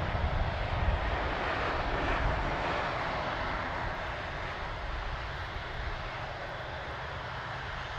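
Airbus A380-800 jet engines running at low taxi power as the airliner rolls past: a steady rumble and hiss that eases slightly about halfway through.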